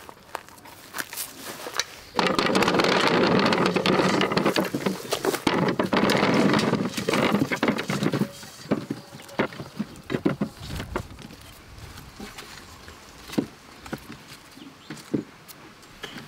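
A bucketful of nectarines poured into a wooden crate: a dense tumbling rattle of fruit knocking on fruit and wood for about six seconds, starting about two seconds in. Afterwards, scattered single knocks as the fruit is handled in the crate.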